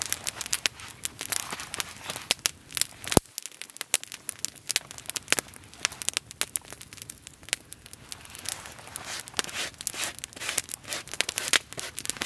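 Wood campfire crackling, with many irregular sharp pops and one loud snap about three seconds in.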